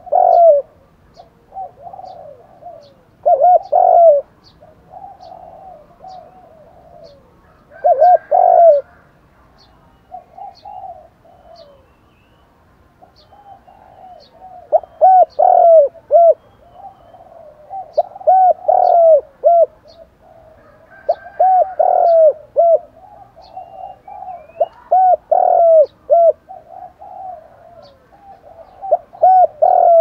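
Spotted dove cooing over and over. Loud bursts of coos come every few seconds, with softer cooing in between.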